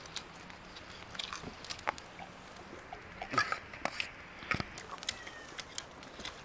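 A person eating: chewing with scattered small clicks and taps, the loudest a little past three seconds in.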